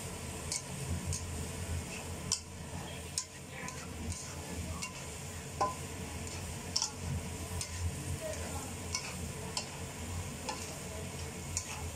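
Noodles and vegetables sizzling in a hot nonstick wok as a spatula stirs and tosses them, knocking against the pan roughly once or twice a second, over a low steady hum.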